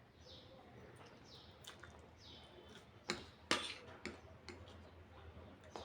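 Quiet noodle-eating sounds: two sharp clicks about three seconds in, over a faint high chirp that repeats about once a second.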